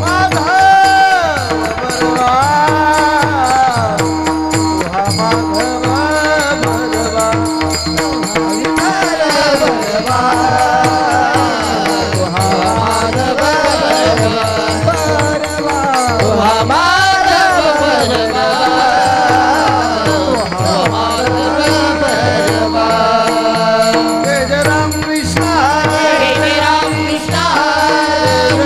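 Marathi Warkari devotional song: a voice sings long, gliding, ornamented phrases over a steady held drone, with percussion keeping the rhythm.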